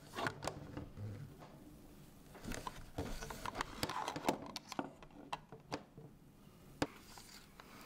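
FED-5C rangefinder camera being handled and its film advance lever wound, giving a run of small mechanical clicks and rattles, with one sharp louder click near the end.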